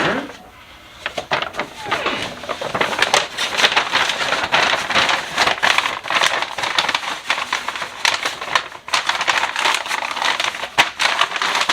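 Plastic packaging crinkling and crackling as it is handled, a dense irregular run of sharp crackles that starts about a second in.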